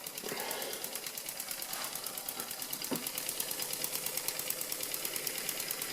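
Doll 320/3 toy upright steam engine running under steam, with a rapid, even mechanical beat.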